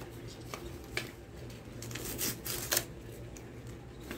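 Paper rustling and crinkling as a printed leaflet is unfolded and handled, in a few short crackles, the loudest a little before three seconds in.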